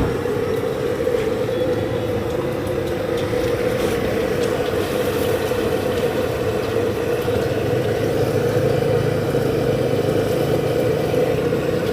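A steady mechanical drone that runs without a break, with a strong even hum in the middle range.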